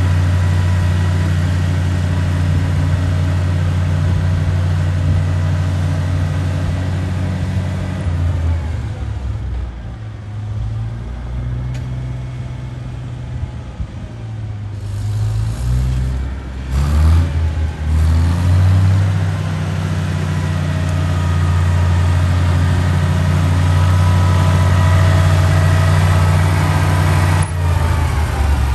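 International Harvester 560 gas tractor's six-cylinder gasoline engine running while the tractor is driven. It runs steadily at first, then its engine speed dips and swells, rising and falling for a couple of seconds past the middle, before running steadily and loudly again.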